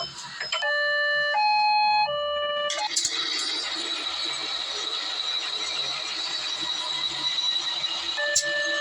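Small electronic train siren sounding three stepped notes, low, high, low, with a thin buzzy tone. After about three seconds a steady rushing noise with a high thin whine follows, and the siren note comes back just before the end.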